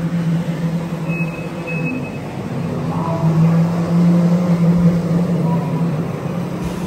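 A vehicle running, with a steady low engine hum over road noise. Two short high beeps come about a second in.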